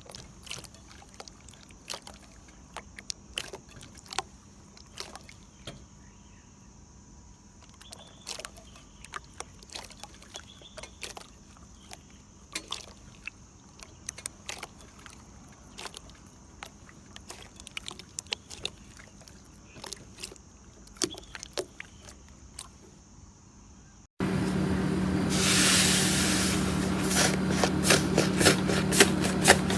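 Slime being handled, with scattered soft clicks and pops. About 24 seconds in, an abrupt change to much louder, dense crackling and crunching.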